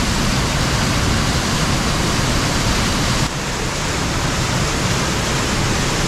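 Waterfall close by: water pouring from a mossy rock arch into a pool, a loud, dense, steady rushing that dips slightly in level a little past halfway.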